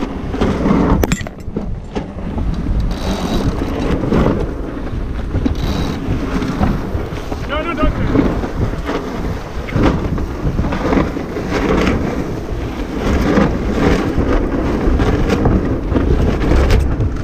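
Wind buffeting the microphone and water rushing along the hull of a sailboat under way, an uneven low rumble that gusts up and down.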